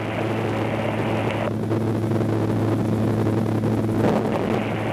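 AutoGyro MTO Sport gyroplane's engine and pusher propeller droning steadily in flight, with airflow rush over the open cockpit. The rushing hiss drops away about a second and a half in and returns near the end, while the engine note holds steady.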